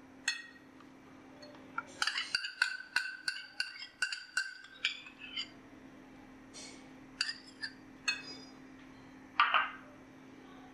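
Metal spoon clinking against glass bowls: a quick run of about a dozen taps, about four a second, each ringing briefly, then a few scattered clinks, as cream is scraped and tapped out of a small glass bowl into a glass mixing bowl.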